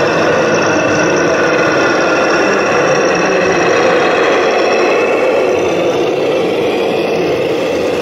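Steady engine-like running sound from a radio-controlled MAN truck model as it pulls a long heavy load.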